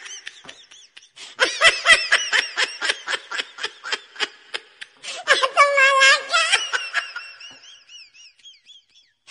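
Women laughing in two fits of rapid pulsing laughter, the second starting about five seconds in, trailing off into faint high giggles near the end.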